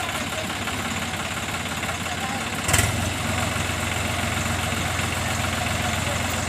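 Swaraj tractor's diesel engine running at a steady idle. A sharp clack comes about two and a half seconds in, and after it the engine note deepens and runs a little louder.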